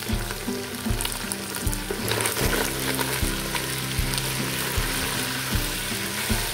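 Beef chunks sizzling as they fry in oil in an aluminium pot, stirred with a wooden spoon that scrapes against the pot. Background music with a steady beat plays underneath.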